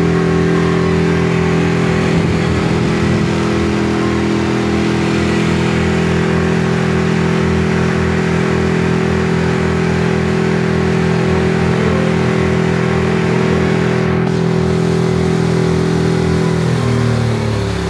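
Motorboat engine running steadily under way, with a rush of wind and water over it. A few seconds before the end the engine note falls in pitch as it slows.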